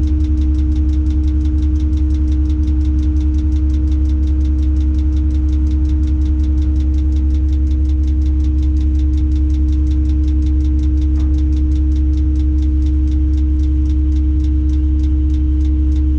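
Diesel engine of a Tadano ATF 180G-5 all-terrain crane running steadily, heard from inside the operator's cab: a constant low hum with a fast, even pulsing beat.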